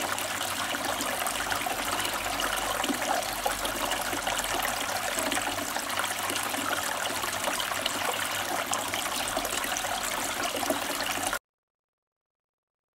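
Kelkay Walnut Cascade water feature running: water trickling and splashing steadily down its tiered basins into the pool. The sound cuts off abruptly about eleven seconds in.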